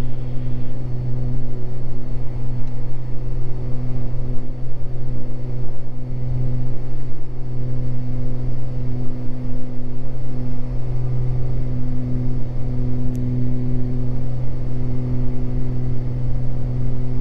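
Beechcraft G58 Baron's twin six-cylinder Continental engines and propellers droning steadily in the climb-out, props pulled back to a reduced RPM.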